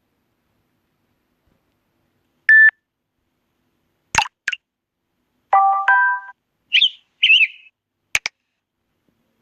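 Samsung Galaxy S7 edge stock notification tones playing one after another. A short beep is followed by two quick clicks, a two-note chime, a pair of chirps and a final click, each separated by silence.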